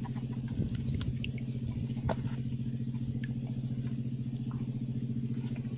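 An engine running steadily with a fast, even throb, with a few faint sharp clicks over it.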